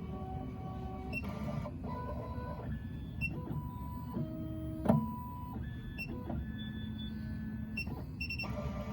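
Stepper motors of a Miracle A9 key cutting machine whining during an automatic calibration run, the pitch jumping from one steady tone to another as the carriage moves at changing speeds. A sharp click about five seconds in.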